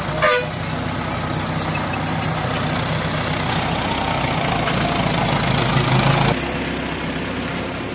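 Diesel engine of a mobile hydra crane running steadily, with a brief sharp noise just after the start. The engine grows louder for a few seconds and drops off abruptly near the end.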